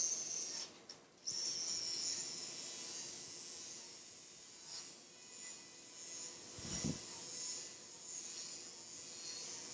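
Powered arthroscopic burr grinding bone on the underside of the acromion during an acromioplasty: a steady high rasping whir that breaks off briefly about a second in, then runs on as the anterior acromion is flattened flush with the posterior acromion.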